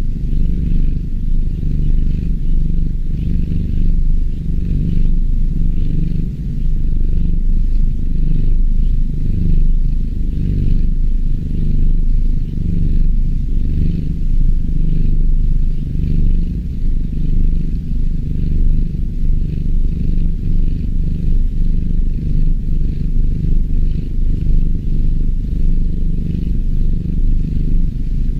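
Kitten purring continuously, a low rumble that swells and eases in a regular rhythm.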